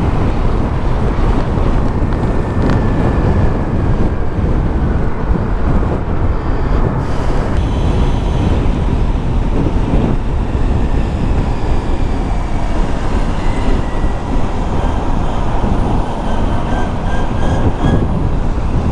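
Steady rush of wind buffeting the microphone, with road rumble, while riding a scooter at highway speed.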